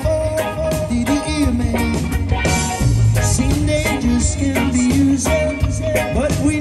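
Live reggae band playing: electric guitars and a keyboard over a steady beat, with a man singing lead.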